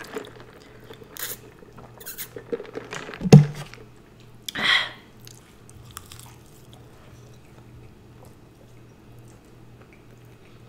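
Eating close to the microphone: chewing and crunching of food, with a few crisp bites in the first four seconds and a loud thump about three seconds in, then mostly quiet chewing.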